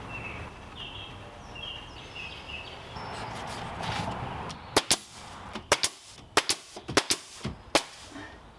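Pneumatic nail gun firing about a dozen sharp shots in quick, uneven succession, starting about halfway through, as trim is nailed on.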